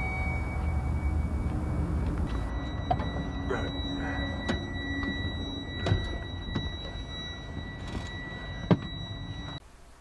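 Scattered knocks and thuds of someone climbing into a semi-truck's cab, over a low steady rumble and a faint steady high tone. A single sharp thunk near the end is the loudest sound.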